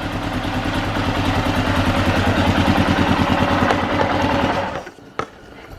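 Arctic Cat 650 H1 ATV's freshly rebuilt single-cylinder four-stroke engine idling steadily, its carburettor not yet adjusted. The idle cuts off suddenly about three-quarters of the way through, followed by a faint click.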